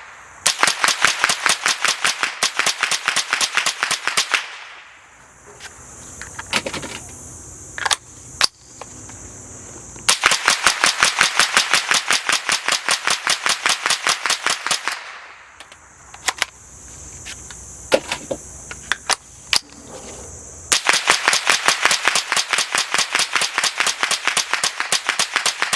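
Suppressed Smith & Wesson M&P 15-22 semi-automatic .22 LR rifle fired rapidly in three long strings of about five or six shots a second, with a few clicks between strings. The rifle is running uncleaned and unrelubricated on cheap ammunition.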